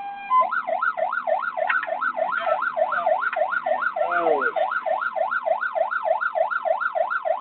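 Fire engine siren sounding a fast up-and-down yelp, about three sweeps a second, starting about half a second in, heard from inside the cab as the truck drives to a call.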